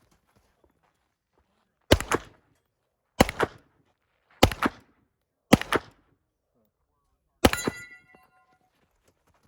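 Five gunshots fired at a steady pace about a second apart, with a longer gap before the last; after the final shot a metallic ringing lingers for about a second.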